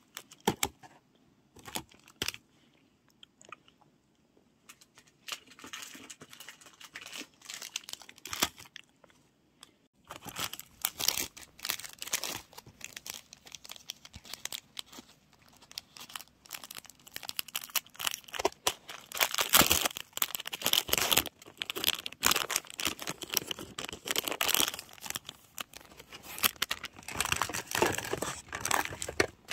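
Close crackling and crinkling rustle: a few scattered clicks for about the first ten seconds, then dense and louder for the rest.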